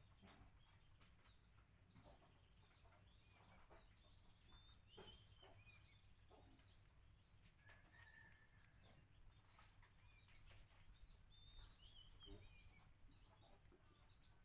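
Near silence: faint, scattered bird chirps and short calls over a low, steady background hum.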